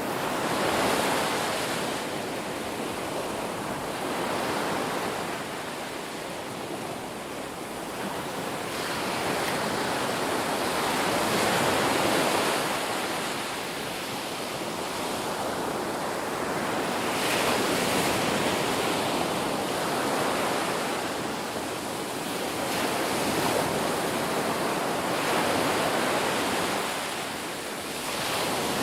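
Ocean waves breaking and washing up on a beach, a continuous surf hiss that swells and ebbs every few seconds.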